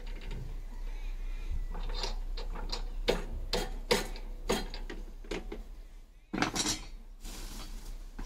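Irregular sharp metal clinks and knocks, about a dozen, as a fitting on a new power weeder is tightened by hand, followed by a short rustle near the end.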